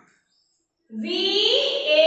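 After about a second of dead silence, singing starts abruptly, with long held notes that slide upward in pitch.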